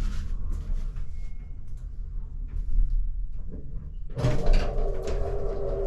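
Elevator car riding down with a low steady rumble and a few light clicks, then its doors sliding open about four seconds in as it reaches the basement.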